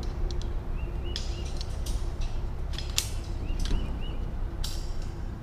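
Steel welded-wire cattle panel clinking and scraping against a metal panel connector on a T-post as it is lifted and slid in: a few sharp clicks and short rasps, the strongest about three seconds in. Faint bird chirps in the background.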